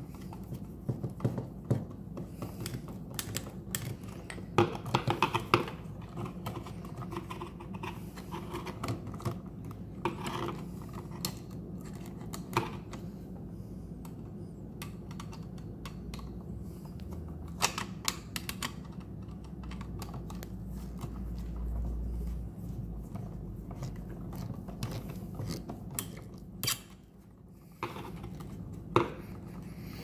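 Scattered small clicks and rattles of a screwdriver turning the terminal screws and of hands handling the plastic body of a Wi-Fi light switch, over a steady low hum.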